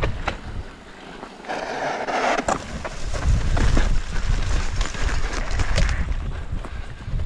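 Mountain bike being ridden along a dirt trail: wind rumble on the helmet-camera microphone, tyre noise and frequent rattling clicks from the bike. The wind rumble grows heavier from about three seconds in.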